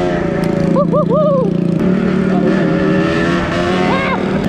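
Two-stroke 125 cc engine of a Kawasaki KMX125 dirt bike running steadily under way on a trail. Three short rising-and-falling pitched sounds come about a second in, and another comes near the end.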